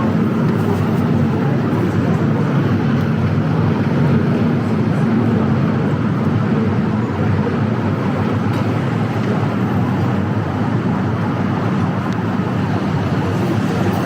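City street ambience: a steady wash of traffic noise.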